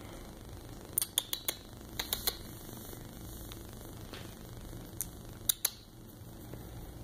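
Sharp finger snaps in small quick clusters, about a second in, two seconds in and again near five seconds, calling cats over.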